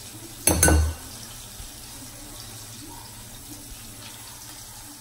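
Floured pieces of fish sizzling in hot oil in a frying pan, a steady hiss, with a loud clattering knock about half a second in.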